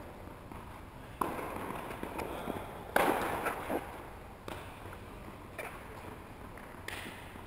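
Tennis ball being hit back and forth in a rally: five sharp pops of the ball off rackets and court, about a second and a half apart, the loudest near the middle.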